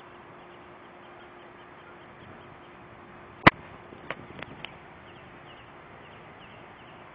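Outdoor background hiss with faint bird chirps. One sharp click about halfway through, then three softer clicks in quick succession.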